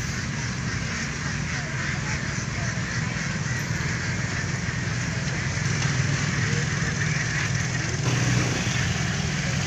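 Small motorboat engine running steadily as a low, even drone.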